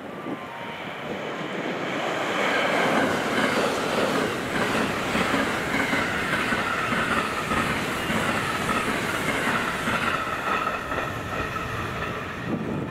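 JR West 683-series electric limited express train, twelve cars, passing at speed on snow-covered track: a steady rush of wheel-on-rail noise with clatter over the rail joints. It builds over the first two seconds, stays loud as the cars go by, and eases slightly near the end.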